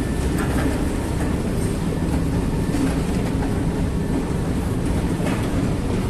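Escalator running: a steady low mechanical rumble with a few faint clicks from the moving steps.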